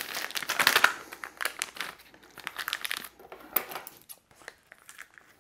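Disposable plastic piping bag crinkling as it is opened and handled, in irregular crackles that are busiest in the first second and a half, then come in sparser bursts.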